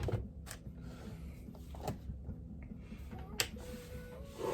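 Three light, sharp clicks about a second and a half apart over a faint low hum, from setting up a coffee maker to brew.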